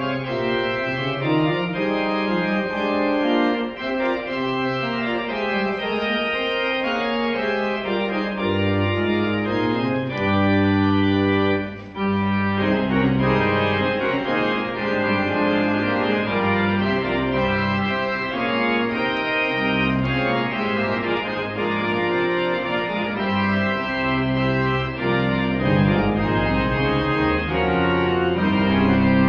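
Organ music: held chords under a moving melody, with a low bass line coming in about nine seconds in.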